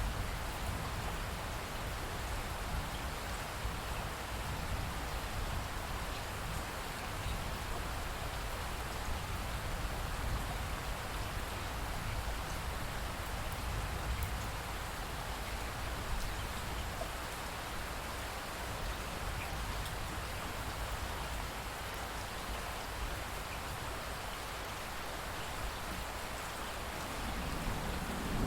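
Steady rainfall, an even hiss of drops falling on surfaces. A low rumble of thunder begins to swell in the last second.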